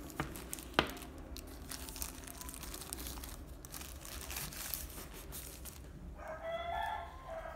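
Thin plastic wrapping crinkling and rustling as a feature phone is handled and slid out of its plastic bag, after two sharp clicks near the start. Near the end a drawn-out pitched call sounds in the background.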